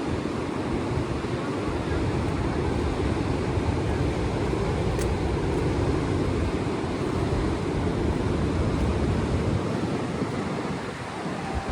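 Ocean surf washing steadily on the shore at high tide, with wind rumbling on the microphone; the rumble eases about ten seconds in.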